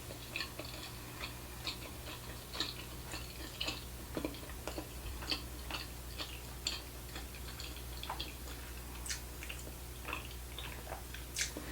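A person chewing sushi with the mouth close to the microphone: faint, irregular wet mouth clicks, one or two a second, over a steady low hum.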